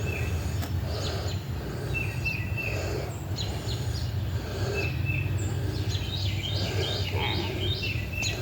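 Birds chirping repeatedly over a steady low hum, with a run of quicker, higher chirps near the end.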